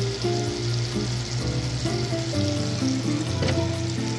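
Butter and a little oil sizzling as the butter melts in a stainless steel kadhai, under background music with held notes. A single click about three and a half seconds in.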